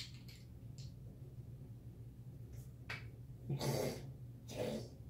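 Small clicks and taps of lipstick tubes being handled and sorted in the hand, with two short louder noises about three and a half and four and a half seconds in, over a low steady hum.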